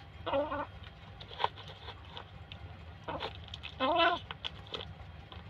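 Frightened kitten meowing twice, short cries about half a second and four seconds in, amid small clicks and crunches of it eating dry kibble from a bowl.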